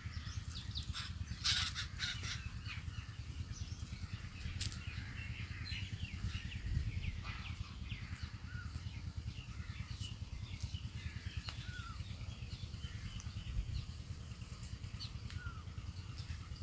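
Birds calling throughout, crows cawing among them, over a few sharp taps of a kitchen knife against a plastic cutting board as radish and carrot are cut; the loudest taps come about one and a half seconds in and near five seconds in.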